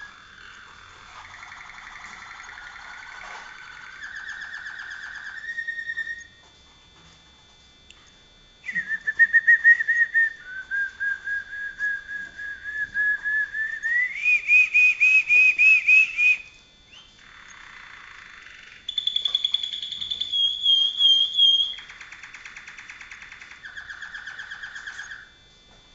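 Malinois (Waterslager) song canary singing a long run of separate rolls and trills, each held for one to three seconds, with a pause of about two seconds after the first few. The loudest tours are in the middle: a steady trill that slowly climbs and then steps up in pitch. A higher, fast trill comes later.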